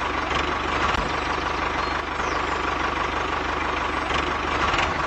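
A motor running steadily, with a fast low chugging under a steady whine.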